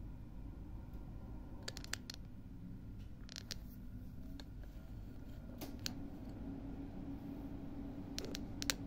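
Light, sharp clicks in small clusters: a few about two seconds in, two at about three and a half seconds, two around six seconds, and a quick run near the end. Under them runs a steady low hum.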